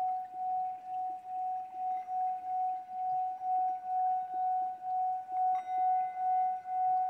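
Hammered brass singing bowl sung by rubbing a wooden striker around its rim, holding one steady ringing tone that swells and dips about two to three times a second. A higher ring joins about five and a half seconds in.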